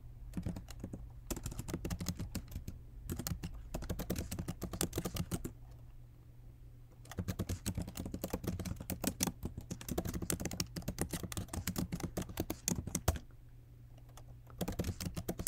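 Computer keyboard typing in several quick bursts of key clicks, separated by short pauses, as terminal commands are entered.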